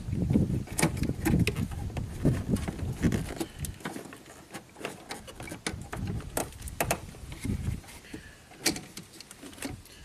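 Scattered plastic clicks and knocks from a wiring-harness connector being handled and fitted under a pickup's hood, with low rustling handling noise through the first few seconds.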